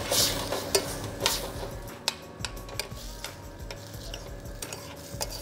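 Metal ladle clinking and scraping against a stainless-steel saucepan as a chunky tomato and meat stew is stirred, in irregular light clicks.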